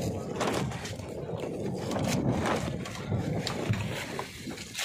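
Wind and water around a small wooden fishing boat at sea, an even rushing with a few scattered light knocks.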